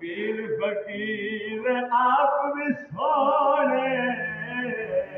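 A man's voice singing a naat unaccompanied, with long, wavering held notes.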